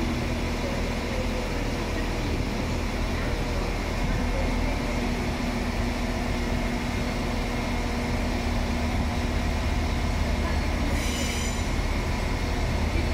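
Freight train of bogie hopper wagons rolling past on curved track: a continuous low rumble of wheels on rail with a faint steady hum. Thin high-pitched tones join in briefly near the end.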